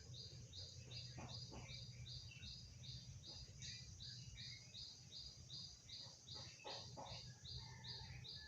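Faint, evenly repeated high chirps, about three a second, from a calling bird or insect, over a low steady hum, with a few other scattered chirps.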